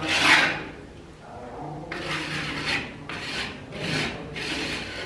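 Repeated scraping strokes of a hand tool across a plaster wall, about five of them with short gaps, the first the loudest.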